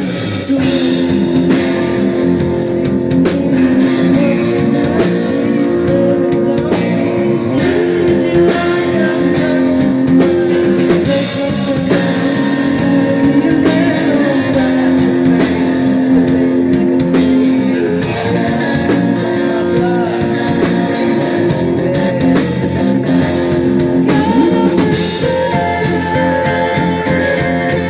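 Rock band playing live: guitars over a drum kit, with long held notes.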